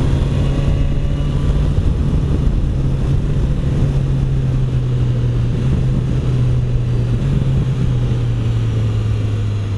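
BMW S1000XR's inline-four engine running at a steady cruise under wind noise. The engine note drops a little about six seconds in as the bike eases off.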